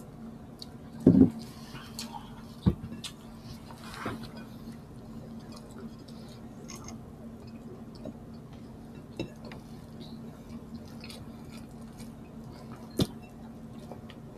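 Close-up eating sounds: chewing, with fingers picking through sisig and rice on plates, many small clicks and ticks. A few sharp knocks on the table or plates stand out, the loudest about a second in and another near the end, over a steady low hum.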